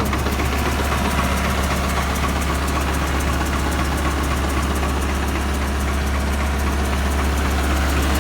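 Bulldozer's diesel engine idling steadily, warming up just after a cold start.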